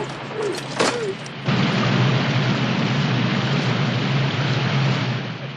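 Animated vacuum cleaner shorting out. A few clicks come first, then about a second and a half in a loud, steady electrical hiss with a low hum sets in and fades near the end.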